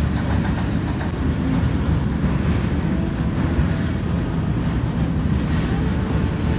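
Freight train of open-top goods wagons passing, making a steady, loud running noise of wheels on track.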